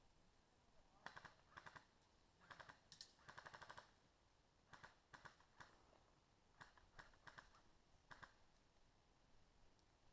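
Faint airsoft guns firing: short bursts of rapid clacking shots and a few single shots, about a dozen in all, with the longest burst of about half a second around three seconds in.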